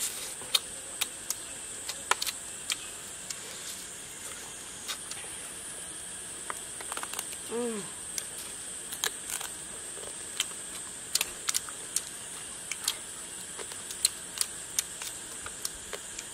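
Close-up eating sounds: irregular lip smacks and chewing clicks as two people eat cooked frog meat with their fingers, with a short falling hum of a voice about seven and a half seconds in. A steady high insect buzz runs underneath.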